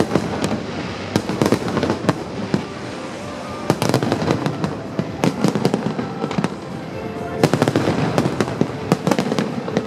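Aerial fireworks going off: many sharp bangs and crackles in quick succession, thickest about 4 s in and again around 7.5 s.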